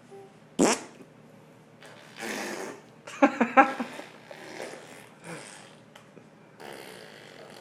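Baby blowing raspberries, lips sputtering to make fart noises in several short bursts, the loudest a rapid flutter about three seconds in.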